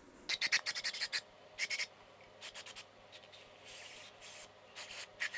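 Aerosol can of brake cleaner being shaken, its mixing ball rattling in a quick run of clicks for about a second, followed by a few shorter rattles and then a soft hiss of spray.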